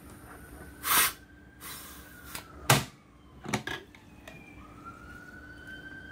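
SodaStream bottle being taken off the carbonating nozzle: a short hiss of released gas about a second in, then sharp plastic clicks and knocks. From about four seconds in, a siren wails, slowly rising and then falling.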